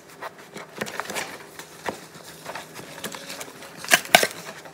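A utensil mashing and mixing butter into flour, oats and brown sugar in a bowl: irregular taps and scrapes, with two sharper knocks near the end.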